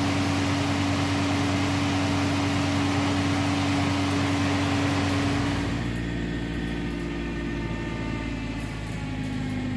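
A car engine driving a cable car's winch pulley through its gearbox, running steadily with a hum. About six seconds in, the sound gets a little quieter and its tone changes.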